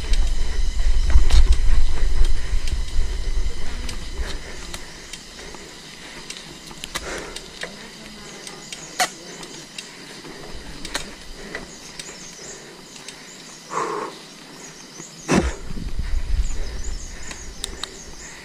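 Mountain bike ride on a trail: wind buffeting the microphone in a heavy rumble, loudest in the first few seconds, with the bike rattling and knocking over the ground and one sharp knock about fifteen seconds in. Faint steady high tones sit behind it throughout.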